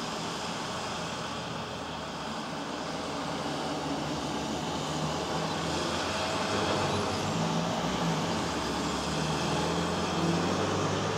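Road traffic passing on wet asphalt: a steady tyre hiss with car engines running, and a low engine hum growing louder in the second half.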